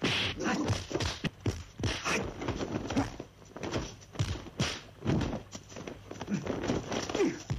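Kung fu film fight sound effects: a quick, irregular series of sharp punch and kick hits.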